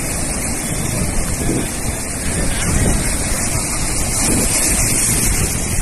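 Wind buffeting the microphone at the seashore, a steady low rumble over the rushing noise of the sea.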